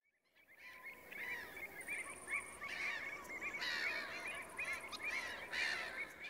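Many waterbirds calling together in a busy, overlapping chorus of short calls, fading in over the first second.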